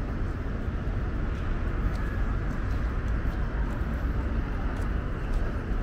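Steady noise of city street traffic, a low even rumble with a hiss of passing vehicles and no single vehicle standing out.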